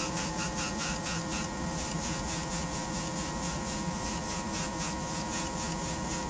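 Airbrush spraying paint onto a balsa float, a steady high hiss that pulses about six times a second, over the steady hum of a small airbrush compressor.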